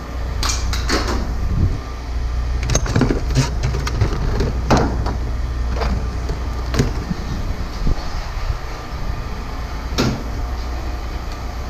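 Scrap being handled and dropped: irregular metal knocks and clanks, about a dozen, over the steady low hum of an idling engine.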